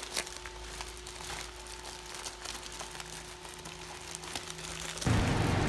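Black plastic bag crinkling as a hand handles it: a run of small crackles. A louder steady noise comes in near the end.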